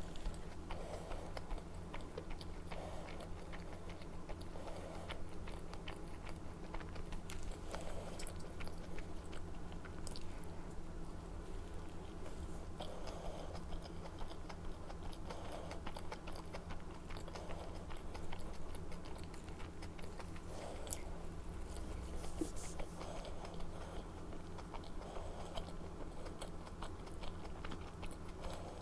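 Close-miked chewing of dumplings, with soft repeated chews about once or twice a second and small mouth clicks, over a steady low hum.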